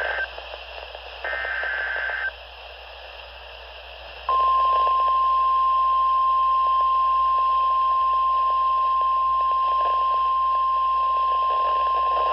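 Emergency Alert System weather-radio alert signal: the last two of the SAME header's digital data bursts, raspy screeches about a second long each, then about four seconds in the steady 1050 Hz warning alarm tone starts and holds. A faint radio hiss runs underneath.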